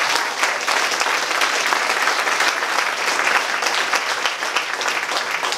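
Audience applauding, a dense patter of many hands clapping that stops near the end.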